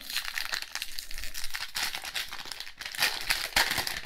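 Shiny foil wrapper of a 1991 Fleer Ultra football card pack crinkling and tearing as it is pulled open by hand. The crackling is loudest about three seconds in.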